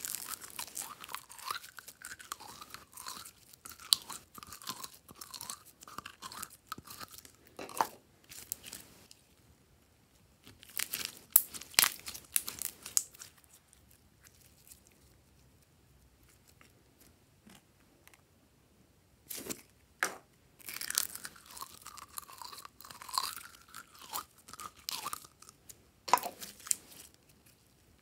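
Glossy slime squeezed and kneaded by hand, crackling and squelching in bursts with wavering squeaks. It goes quiet for several seconds near the middle, then starts again.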